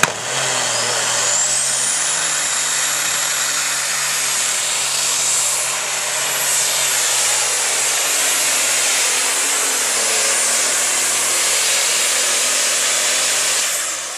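Open Super Stock pulling tractor's turbocharged diesel engine running flat out under load through a pull. It is loud and steady, and a high turbo whine climbs over the first couple of seconds and then holds.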